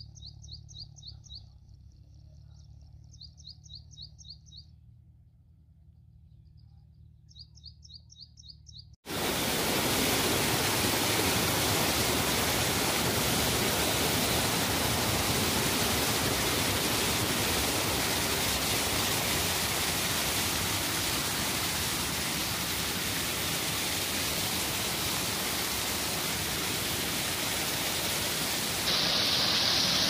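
A songbird singing short, fast, high-pitched trills, three bursts of a second or two each. About nine seconds in this cuts abruptly to loud, steady rushing water such as a waterfall or stream.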